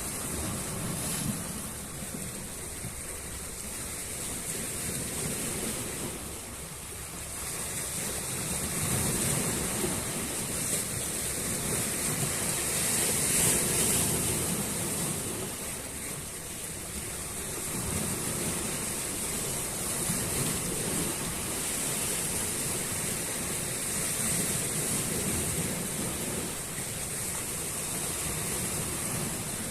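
Sea waves breaking and washing ashore, in surges that rise and ease every few seconds, loudest about halfway through.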